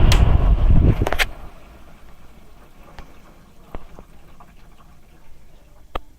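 Window air conditioner running loudly, then switched off with a click about a second in, its rumble cutting out; afterwards only a few faint ticks.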